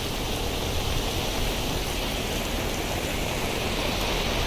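Steady tropical rain falling, a continuous even hiss with no breaks.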